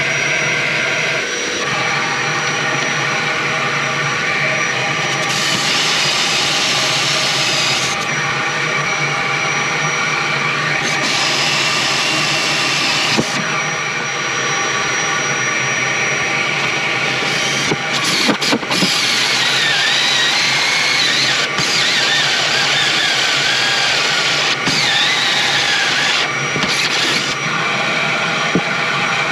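Cordless drill with a large 102 mm bi-metal hole saw cutting through a teak tabletop, finishing the cut from the second side after a part-way start from the first. The motor runs steadily with a constant whine, and the harsher cutting noise swells in several stretches as the saw teeth bite into the wood.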